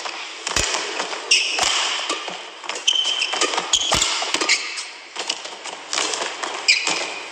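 Badminton rally: rackets sharply striking the shuttlecock every second or so, with shoes squeaking briefly on the court mat between shots over a steady hall and crowd background.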